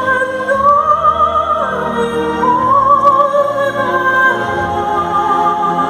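Operatic singing over orchestral music: a slow melody of long held notes sung with vibrato.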